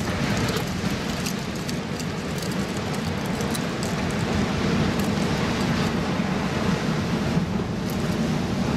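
Ocean surf breaking steadily on a rock wall, with wind buffeting the microphone and a few light clicks scattered through.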